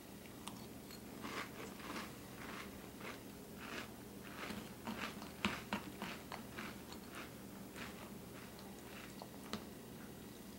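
Chewing a mouthful of Cinnamon Toast Crunch cereal in milk: a quick, irregular run of wet crunches, densest around the middle.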